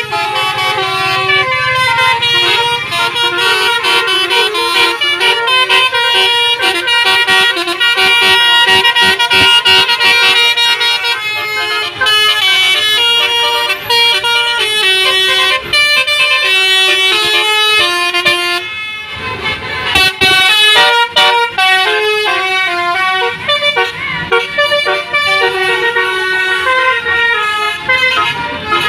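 Telolet bus horns: a tour bus's multi-tone air horns playing a fast melodic jingle of stepped notes, over and over. There is a brief lull about 19 seconds in, then the tune starts again.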